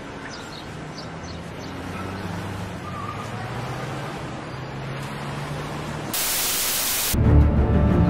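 Soundtrack city ambience: a steady hiss over a low hum, with a few faint bird chirps in the first second or so. About six seconds in, a loud hiss lasting about a second, then loud dramatic music comes in.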